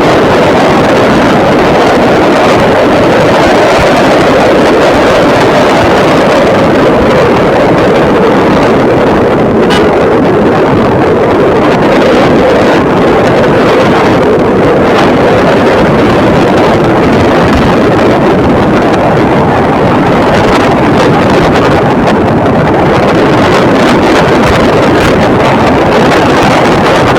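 Loud, steady rushing noise of a moving vehicle with wind buffeting the microphone.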